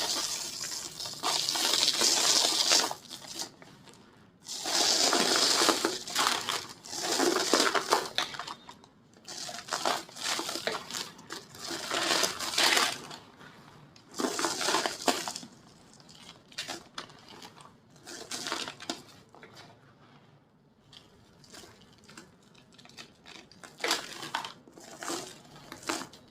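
Dry, pink-tinted white cement shapes being crushed and crumbled by hand, giving crisp crunching and crackling in repeated bouts. The bouts are loudest and longest in the first half and become smaller and sparser crumbles later.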